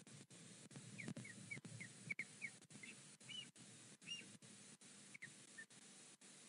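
Osprey giving short, high, falling whistled chirps, about three a second at first, then a few more spaced out. A brief low rustle comes about a second in. The recording is faint and cuts out briefly many times.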